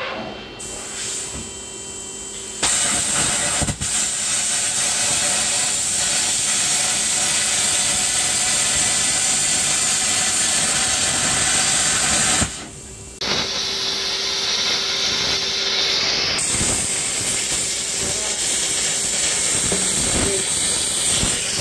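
Plasma cutter hissing steadily as it cuts through car body sheet steel. It starts about two and a half seconds in, cuts off briefly around twelve seconds, then starts again.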